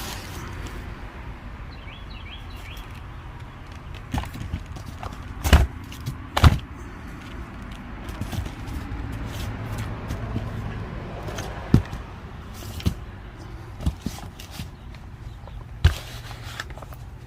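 Firework cakes and boxes being handled and set down, giving a series of sharp knocks and thuds, the loudest two about five and six seconds in, over a steady low hum.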